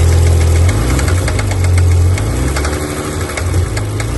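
BMW 525's six-cylinder engine running with a repeated knock over its steady hum; the owner traces the knock to cylinder one, whose piston is battered shiny.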